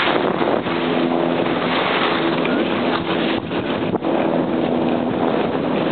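Wind rushing over the microphone while riding fast downhill on snow, mixed with the hiss of snow sliding underfoot. Faint steady low tones come and go through the middle.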